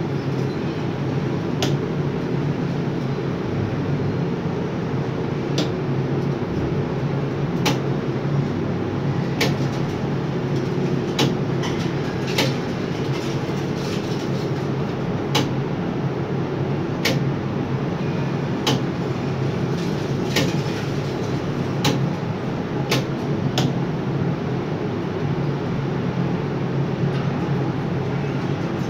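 Hot-metal overhead crane running, heard from inside the operator's cab: a steady low mechanical rumble. Short sharp clicks come every second or two, thinning out in the last few seconds.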